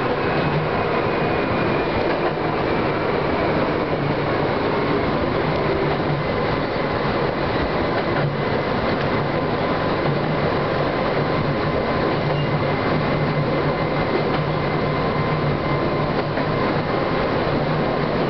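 Chichibu Railway electric train running at a steady pace, heard from inside the driver's cab: continuous running noise of wheels on rails with a low hum.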